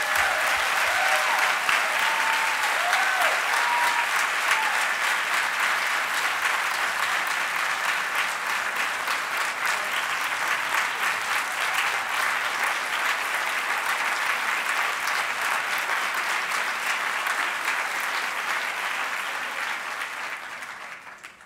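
A large auditorium audience giving a standing ovation: sustained, dense applause, with a few voices calling out over it in the first seconds. It fades out near the end.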